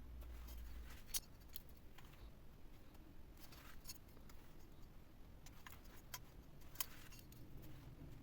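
Faint, scattered clicks and light taps, with a sharper click about a second in and another near seven seconds, over a low hum that stops about a second in.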